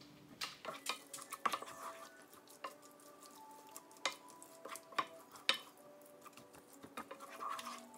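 Wooden spoon stirring diced chicken and pesto in a fry pan, scraping and tapping irregularly against the pan, with a few sharper knocks.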